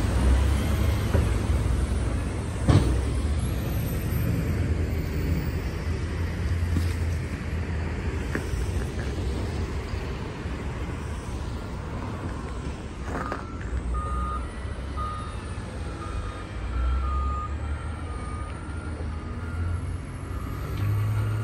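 Heavy diesel engine of a snow-clearing wheel loader running under passing street traffic, with a single sharp knock about three seconds in. From about halfway through, a reversing alarm beeps repeatedly at one mid pitch.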